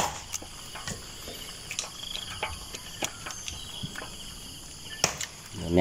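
Crickets trilling steadily, with a few scattered short clicks and taps, the sharpest about five seconds in.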